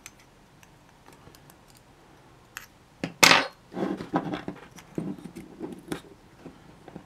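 Small metal parts being handled and fitted together: an aluminium bearing housing and a DC motor clicking lightly, then a louder clatter about three seconds in followed by several seconds of scraping and rubbing.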